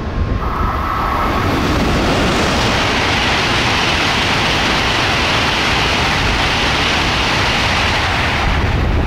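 A 16-car N700A Shinkansen passing at about 263 km/h: a loud, steady rush of air and wheel noise that builds over the first second or two and drops away just before the end as the last car goes by. A brief steady high tone sounds about half a second in.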